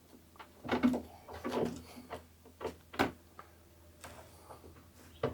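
Handling noise from small wires and a multi-pin electrical connector plug being worked by hand: a few scattered light clicks and rustles, with one sharper click about three seconds in.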